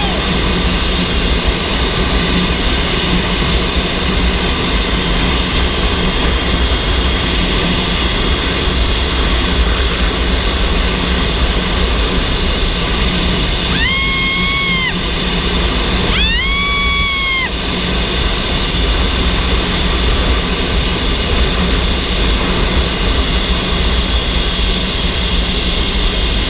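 Steady rush of wind over the microphone with the whine of a zipline trolley's pulleys running fast along the steel cable. Just past halfway a rider gives two long, high shouts of delight.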